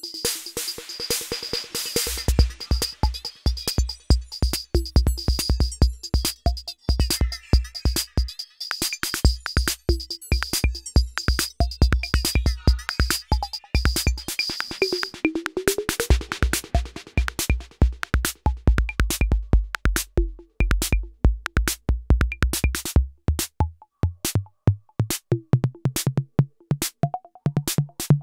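Roland TR-6S drum machine playing a fast electronic drum pattern of kick, snare and hi-hats, its sounds tweaked live: the snare's tuning and delay send, then the bass drum's decay. The kick drops out briefly twice, and near the end its low note rises in steps.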